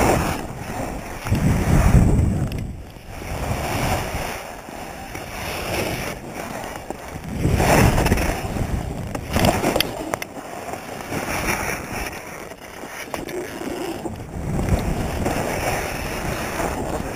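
Skis sliding and scraping through loose snow, with wind on the action camera's microphone. It is a rushing noise that swells and fades several times.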